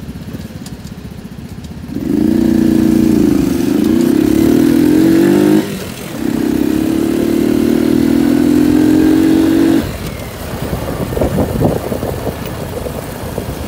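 Small motorcycle engine pulling hard under throttle. It starts about two seconds in, cuts out briefly just past five seconds, pulls steadily again and then drops off near ten seconds, leaving rougher, uneven engine and road noise.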